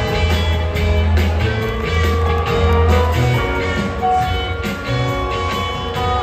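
Live rock band playing on stage: held electric bass notes and a steady drum beat, with guitar and other instruments sustaining notes above.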